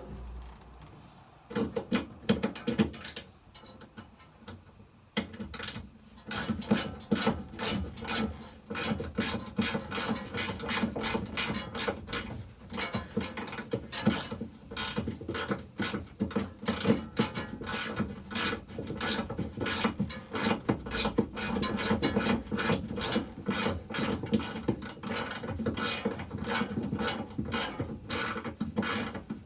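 Rapid, sharp clicking of a hand ratchet working a fastener, going on almost without pause after a few scattered knocks in the first few seconds.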